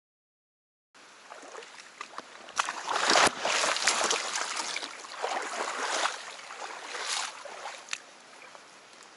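Water splashing and sloshing as someone moves through the creek, starting about a second in, loudest in the middle and dying away near the end.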